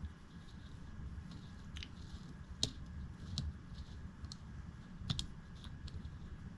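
Scattered small, sharp clicks and taps of a small screw, tools and metal knife parts being handled while a pocket knife is screwed back together, the loudest about two and a half seconds in, over a low steady hum.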